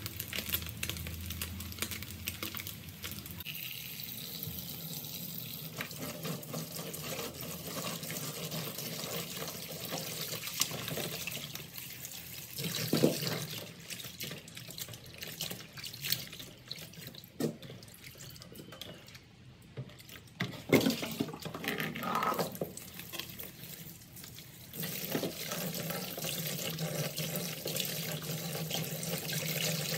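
Oil sizzling under frying fish for the first few seconds, then hands washing small raw fish in a plastic basin of water in a stainless steel sink: water sloshing and splashing, with a couple of louder splashes. A tap runs into the basin near the end.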